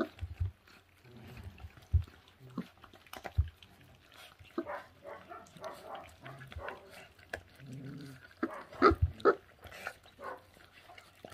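Two 24-day-old puppies chewing and tearing at raw meat: irregular wet smacking and clicking of jaws, a few short low grunts, and sharp knocks now and then.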